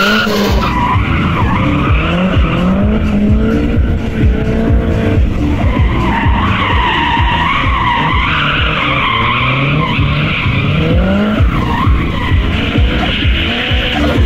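First-generation Mazda MX-5's four-cylinder engine revving hard, its pitch climbing and dropping again and again as the car drifts, with the tyres squealing and skidding on the concrete.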